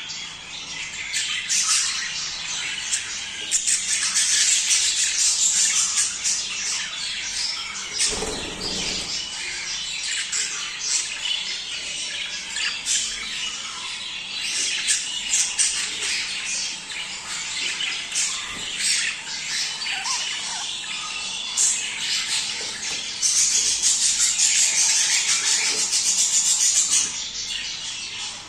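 A flock of budgerigars chattering continuously with chirps and squawks, the budgie mating chatter. It gets denser and louder about four seconds in and again near the end.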